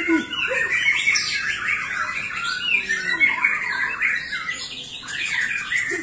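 Many caged songbirds singing at once, a dense, unbroken chatter of overlapping chirps and trills.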